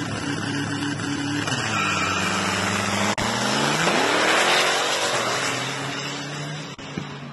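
A nitrous-fed Chevy Blazer and a turbocharged Nissan Hardbody pickup racing at full throttle. About four seconds in, the Blazer passes close by as a loud rush of engine noise, its pitch rising and then falling as it pulls away down the track.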